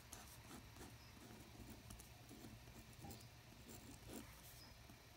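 Faint scratching and light tapping of a pen writing numbers on lined notebook paper, in many short strokes.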